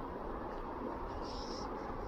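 River water flowing with a steady rushing, with a brief high-pitched chirp a little over a second in.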